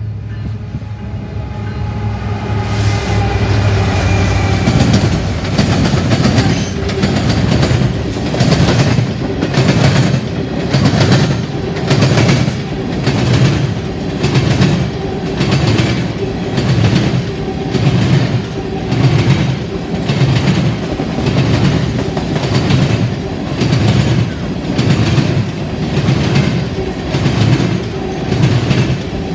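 Freight train led by a CN diesel locomotive passing close by: the locomotive's engine draws near and goes past in the first few seconds. A long string of tank cars follows, their wheels clacking in a steady rhythm of about one beat a second.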